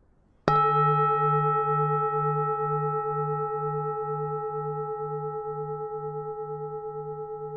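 Temple bell (chuông chùa) struck once, about half a second in. It rings on with a pulsing low hum under several higher steady tones, fading slowly.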